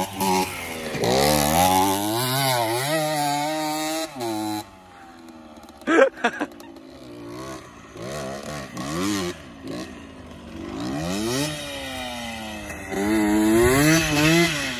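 Small single-cylinder pit bike engines revving up and down as the throttle is worked over rough dirt, loud for the first few seconds, fainter through the middle, and loud again near the end. A sharp knock comes about six seconds in.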